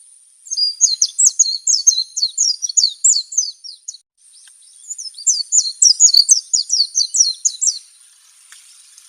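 White-eye (pleci) singing in two rapid twittering phrases, each a quick run of high, falling notes lasting about three seconds, with a short pause between them. A faint steady high-pitched hiss runs underneath.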